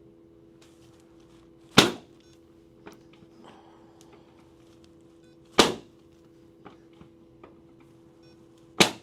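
Three sharp, loud clicks a few seconds apart from chiropractic jaw adjustments, over a faint steady hum.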